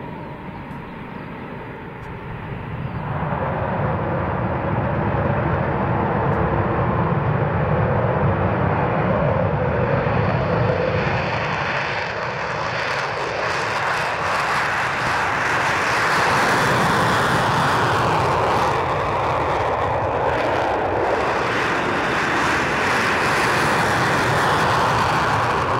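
Twin Eurojet EJ200 turbofans of a Eurofighter Typhoon running up to full power for takeoff. A loud jet roar swells about three seconds in and holds through the takeoff roll and rotation, growing harsher near the middle.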